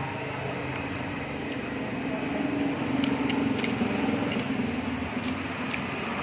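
Steady traffic-like rumble, swelling slightly midway, with a handful of short, sharp clicks in the second half, such as utensils tapping a bowl.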